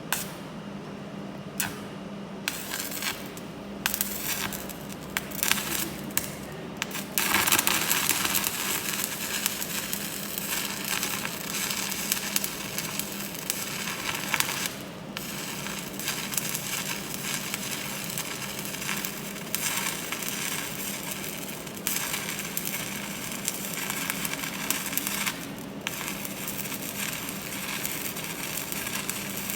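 Welding arc crackling: a few short sputtering starts, then a steady crackle from about seven seconds in, broken briefly twice, over a steady low hum.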